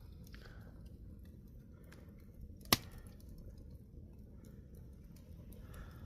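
Campfire crackling quietly with scattered small ticks, and one sharp, loud pop of burning wood about two and a half seconds in.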